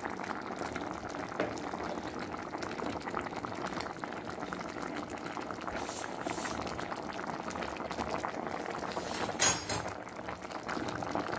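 A pot of squash stewing in coconut milk (ginataang kalabasa) at a rolling boil: a steady mass of fine bubbling and popping. A brief louder noise breaks in about nine and a half seconds in.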